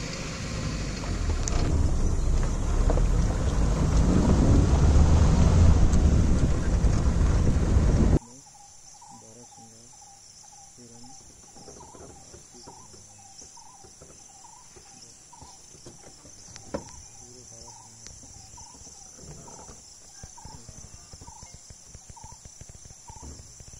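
A vehicle engine runs with a loud low rumble that swells and then cuts off abruptly about eight seconds in. After that comes a quiet outdoor bed: the steady high buzz of insects, with short faint chirps about once a second.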